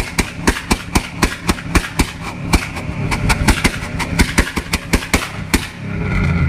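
Ford modular V8 pickup engine held on the rev limiter, cutting in and out in sharp pops about four or five times a second. Near the end the pops stop and the engine settles into a smoother, steady run.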